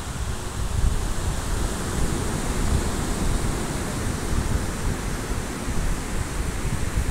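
Wind buffeting the microphone with an uneven low rumble, over a steady rushing hiss of waves on the beach.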